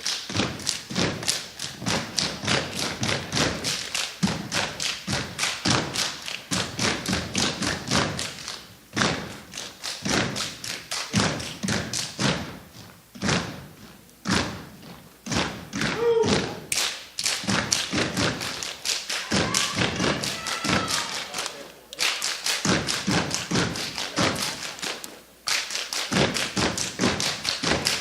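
Step team stepping: fast, rhythmic stomps and hand-struck beats from several performers in unison, broken by a few short pauses.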